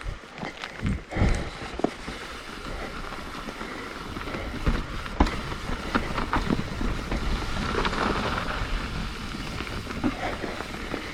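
Mountain bike rolling fast down a rough dirt trail: a steady rush of tyres and wind, with the frame and drivetrain clattering and knocking sharply over roots and rocks.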